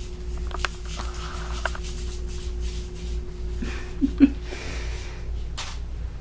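Kittens playing on a tile floor: scattered light clicks and taps over a steady low room hum, with two short louder knocks about four seconds in.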